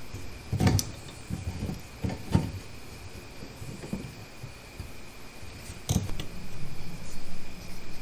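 Metal clicks and knocks as a valve spring height micrometer is fitted and adjusted on an aluminium cylinder head. A low steady hum comes in about six seconds in.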